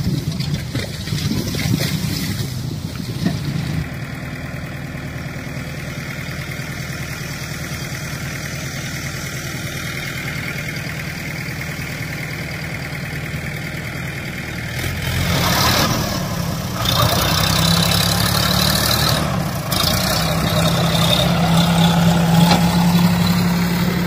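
Tractor engine running steadily while its hydraulic tipping trolley dumps a load of soil. About fifteen seconds in, the engine grows louder, with a stronger steady low hum.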